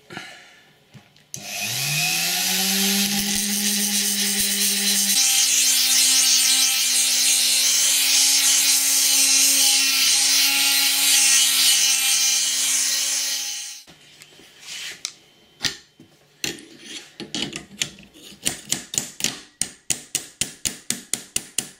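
Handheld rotary tool (Dremel-type) starts about a second in, spins up to speed and grinds metal steadily as it files down the knife blade's tang to fit the bolster, then cuts off after about 12 seconds. A few scattered clicks follow, then a quick, even run of sharp strokes or taps, about four a second.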